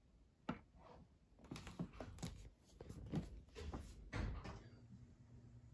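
Handling noises in a hamster cage: a string of irregular rustles and soft knocks in the paper bedding, with a heavier thump about four seconds in.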